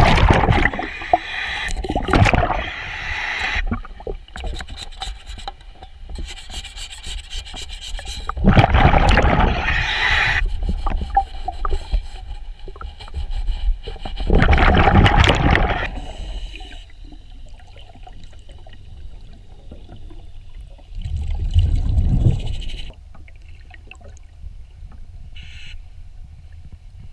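Underwater sound of a scuba diver cleaning a boat: loud gushes of exhaled regulator bubbles every several seconds, each lasting a second or two, with quieter rubbing and scraping against the hull or propeller between breaths.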